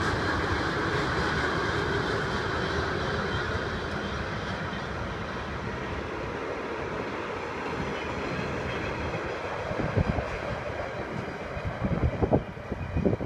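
Freight train rolling past with two unpowered metro cars towed in its consist: a steady rumble of steel wheels on rail, easing slightly partway through. A few sharp knocks come in the last few seconds.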